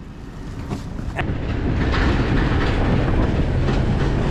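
A truck towing a trailer loaded with a skid steer, running on the road with a few scattered knocks. The noise builds over the first two seconds as it gets under way, then holds steady.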